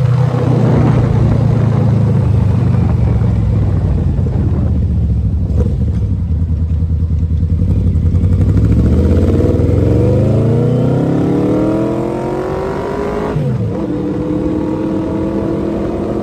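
Yamaha V-Max's V4 engine running under way: a steady low note for about eight seconds, then the revs climb for about five seconds as the bike accelerates, drop sharply at a gear change, and hold steady again, with wind rushing past the microphone.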